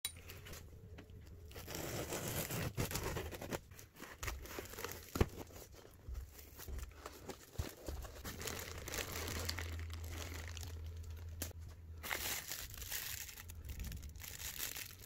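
Cardboard box being unpacked by hand: packing tape tearing, plastic wrap crinkling and cardboard flaps rustling, with a few sharp knocks as parts are handled.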